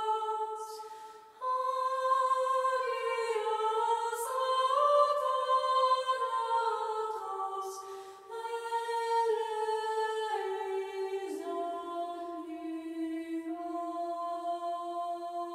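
A high voice singing a slow, unaccompanied melody that moves in steps from note to note. There are short breaks between phrases about one and a half seconds in and again near eight seconds, and the last phrase settles onto a long held lower note.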